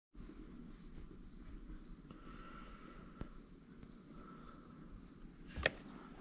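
A cricket chirping steadily at about two chirps a second, faint against a low hum, with a small click near the middle and a sharper knock near the end.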